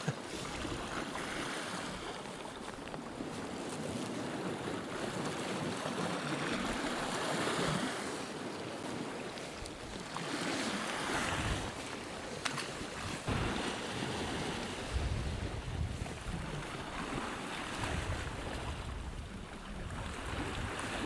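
Sea waves washing and breaking over shoreline rocks, swelling and easing in surges, with wind buffeting the microphone in the second half.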